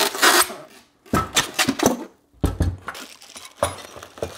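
Unpacking noises: styrofoam packing rubbing and scraping at first, then a series of knocks and clunks as parts are set down on a wooden workbench, followed by scattered clicks and rustling of small hardware.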